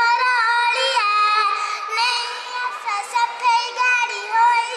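A young child singing in a high voice, holding notes that slide up and down.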